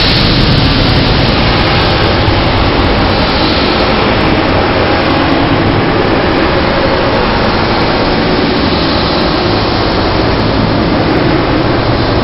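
Thunder from a very close lightning strike, slowed to quarter speed: a loud, steady, drawn-out wash of noise with no distinct cracks.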